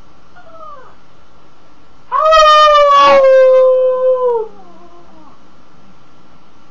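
A pug and a person howling together: one long, steady howl of about two seconds that slides down in pitch at the end, with a second voice overlapping partway through. A faint short whine comes first.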